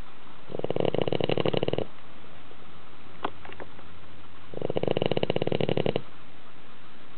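Dog snoring loudly in its sleep: two snores, each with a fast flutter and over a second long, about four seconds apart.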